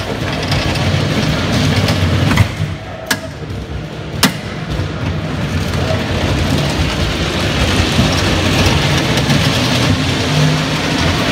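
Car engine running and road noise heard from inside the cabin while driving, a steady hum under a broad rush, with a few sharp clicks in the first few seconds.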